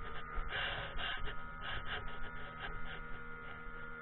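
Outboard motor of a small inflatable boat running at speed, a steady drone, with irregular gusts of rushing wind and water over it.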